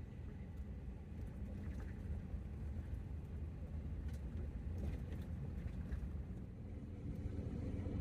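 Van driving on a gravel road bed: a steady low rumble of engine and tyres on gravel, with a few faint ticks.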